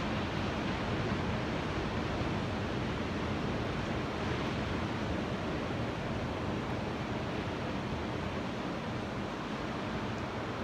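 Ocean waves washing on the shore, a steady, even rush of surf with no distinct breaks.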